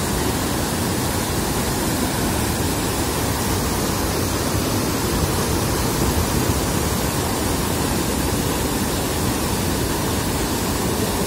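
Floodwater pouring over a lake's overflow weir and churning white over the rocks below: a steady, loud rush of falling water.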